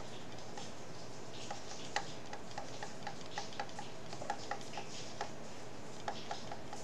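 Stylus tapping on a tablet screen during handwriting: a scatter of light, irregular ticks over a steady hiss.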